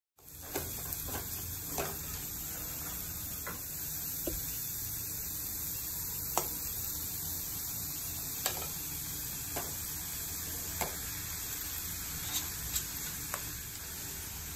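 Chopped vegetables sizzling in hot oil in a pan, a steady hiss. A wooden spatula gives occasional sharp clicks and scrapes against the pan as it stirs.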